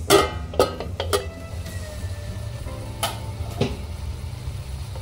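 Stainless steel lid clanking against an iron kadhai as it is lifted off the simmering gravy: three sharp metallic knocks with a short ring in the first second, then two more clinks about three seconds in, over a steady low hum.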